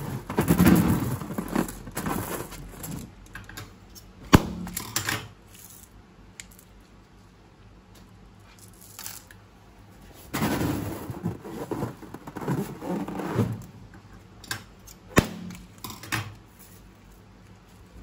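Crackling, crinkly handling noises from slime-making, in two busy stretches near the start and about two-thirds of the way through, with a few sharp single clicks between them.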